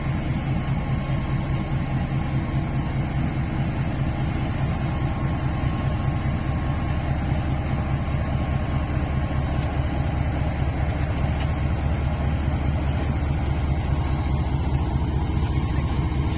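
Diesel locomotive engine running steadily, a deep, even engine sound with no change in level.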